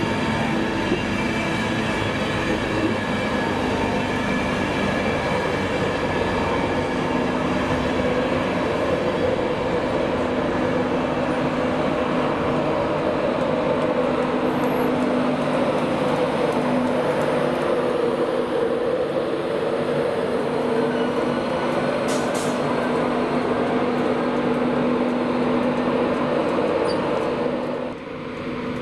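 A train running along the track: a steady rail noise with several held tones, dropping suddenly in level just before the end.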